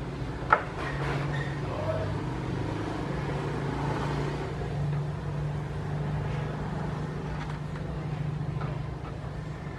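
A large portable speaker cabinet giving a steady low hum, with one sharp pop about half a second in.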